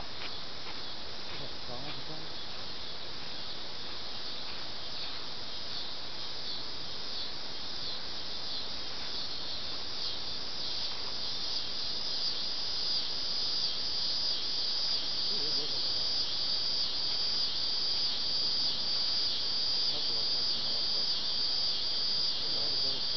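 Steady, high-pitched chorus of summer insects buzzing in the woods. About ten seconds in it grows louder and takes on a regular pulsing beat.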